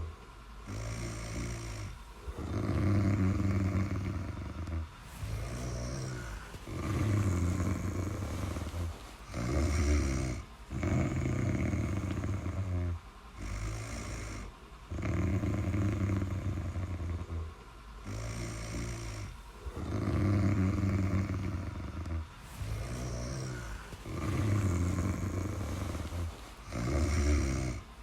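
Steady snoring, a loud low snore on each breath every four to five seconds, with softer breathing between.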